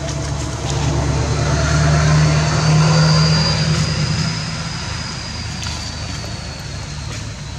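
A motor engine's low hum that swells to a peak about two to three seconds in and then fades, as a vehicle passes, with a thin high whine above it.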